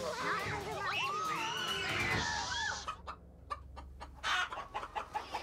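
A flock of domestic hens clucking and squawking. The first two seconds are busier, with high, bending cries; after that come quieter, short clucks.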